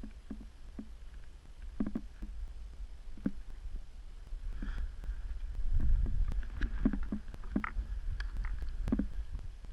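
Wind rumbling on the microphone, loudest about six seconds in, with irregular soft knocks and crunches scattered through it.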